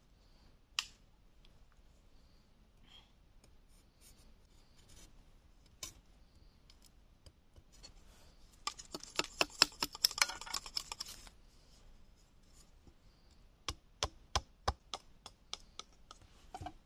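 A machete blade working green bamboo. Around the middle comes a burst of quick scraping cuts lasting a couple of seconds. Near the end a string of about eight sharp knocks follows, the blade striking the bamboo at roughly three a second.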